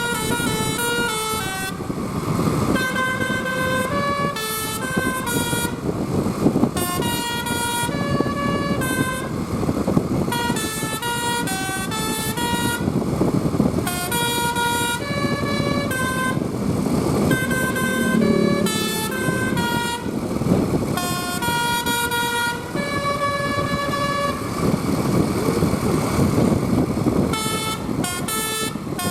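A bus's Basuri telolet horn, a multi-tone musical horn, playing a tune of short stepped notes phrase after phrase with brief pauses between phrases. A steady rumble of engine and road noise runs underneath.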